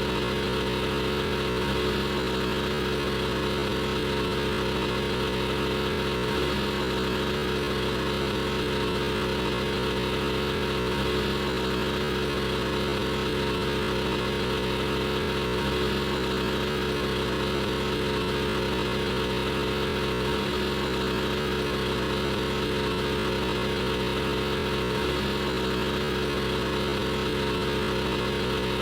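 Generator running steadily, a constant hum over an even noise, with no change in speed or load.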